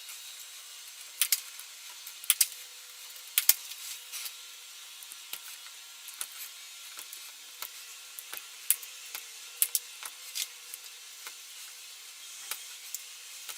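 Irregular small, sharp clicks and snaps of electrical wires being trimmed and joined in WAGO lever connectors, a couple of dozen in all, the loudest a little over two and three seconds in.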